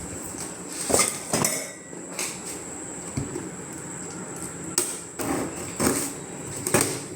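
Several sharp knocks and clinks of hard objects, about five spread through, some coming in quick pairs.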